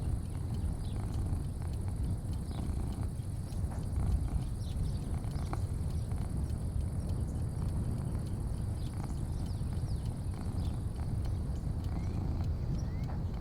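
Porch ambience: a steady low rumble under a constant high-pitched hiss, with faint short chirps and ticks scattered throughout.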